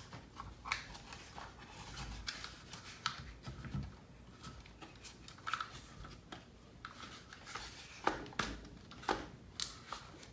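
Hard plastic parts of a Traxxas Rustler's rear end and chassis clicking, knocking and rubbing as they are worked together by hand, a stiff fit that takes some forcing. A few sharper clicks near the end.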